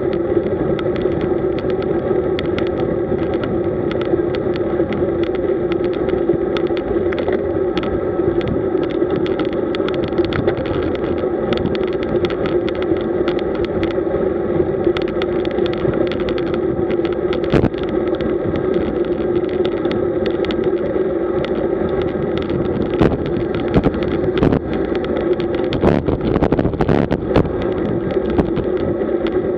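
Steady rush of wind and tyre noise from a camera mounted on a road bike riding at about 38 km/h, with frequent small knocks and rattles from the road surface, more of them in the last few seconds.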